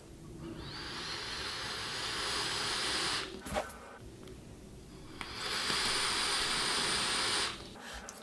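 Two long draws on a LayerCake 24 mm dual-coil rebuildable dripping atomizer: a steady hiss of air pulled through the atomizer, each lasting about three seconds, with a short click between them.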